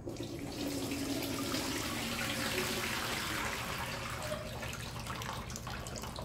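Water poured from a steel bowl through a plastic colander of soaked dried seaweed, splashing and draining steadily into a steel bowl below.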